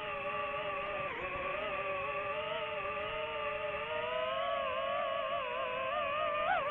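DJI FPV drone's propellers and motors whining, a pitched tone that glides up and down as the throttle changes, rising briefly near the end.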